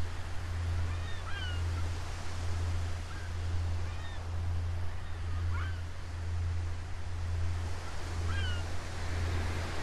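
Ocean-wave sleep soundscape: a steady wash of surf with a constant low hum under it, and a few short bird calls scattered through it.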